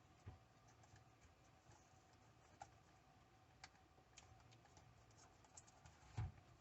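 Faint, scattered clicks and taps of small tools and fingers working on a Chromebook's plastic case during disassembly, with a low thud about six seconds in.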